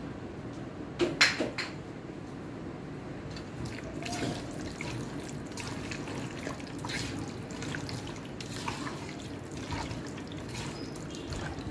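A hand squelching and kneading chunks of raw meat in a thick, wet spice marinade in a metal bowl. A couple of sharp knocks about a second in are the loudest sounds.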